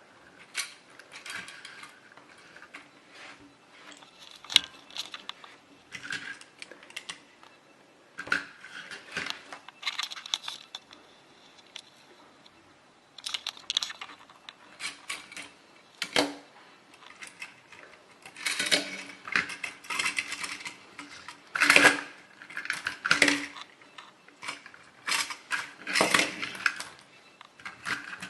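Toy cars and trucks being handled, clicking and clattering against each other and a hard surface in irregular bursts, with a few sharper knocks.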